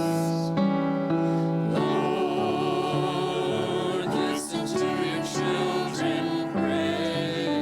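Voices singing a hymn-like prayer refrain over held instrumental chords. The singing comes in about two seconds in.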